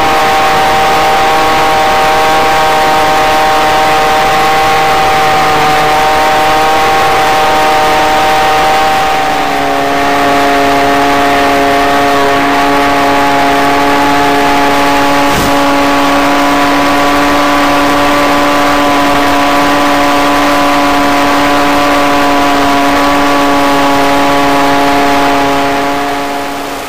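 Electric motor and propeller of an FPV model plane droning at a steady throttle. About a third of the way in the pitch drops a step and then holds, as the throttle comes back under return-to-home autopilot. A single sharp click is heard about halfway.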